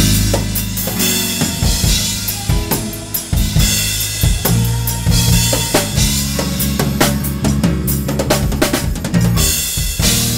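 Drum kit played live and busy, with snare and bass drum hits and cymbal crashes, over held electric bass guitar notes that change every second or two.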